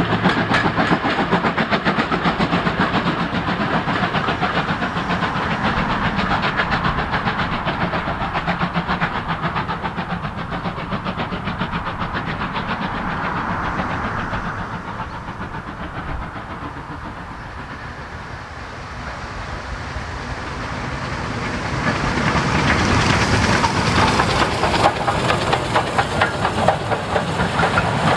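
Steam-hauled train of coaches clattering over the rail joints, fading as it runs away. About three quarters of the way through the clatter builds again, loud and close, as BR Standard 4MT 4-6-0 No. 75069 comes past with its coaches.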